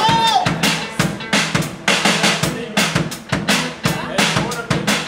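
Band music: a drum kit playing a steady beat with snare and bass drum over a repeating bass line, with a short sliding note right at the start.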